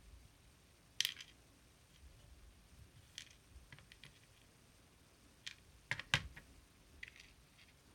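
Scattered small clicks and taps from handling the pins and parts of a disassembled Assa 600 lock. The loudest is a pair of sharp clicks with a dull knock about six seconds in.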